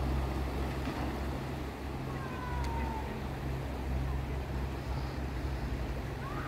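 Steady rush of the River Severn in flood, fast high water running past, with a low rumble underneath and a faint falling whistle about two seconds in.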